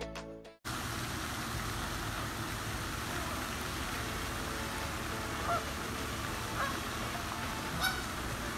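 Steady rush of a pond fountain's spray, with three short honks from Canada geese, about five and a half, six and a half and eight seconds in.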